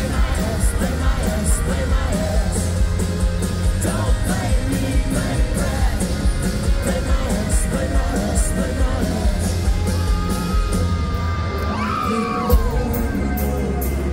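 Live rock band playing a song: electric and acoustic guitars and a drum kit with a steady beat, under female lead vocals, heard loud from the audience.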